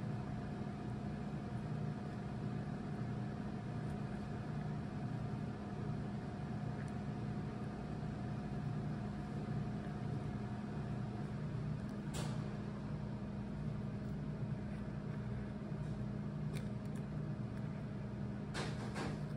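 A steady low machine hum, with a few faint clicks about twelve seconds in and again near the end.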